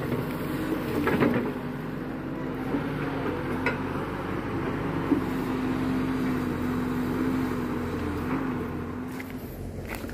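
Kato HD512E tracked excavator's diesel engine running steadily while it digs and moves soil, with a few short knocks.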